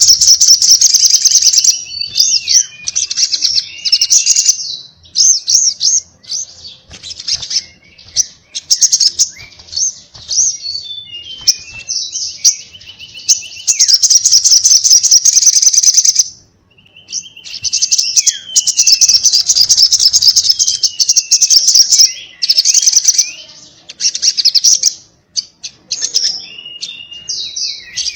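Sogon (spiderhunter) singing in a fast, continuous flow: long runs of rapid high chirps lasting several seconds each, broken by short pauses, with lower sliding whistled notes in between.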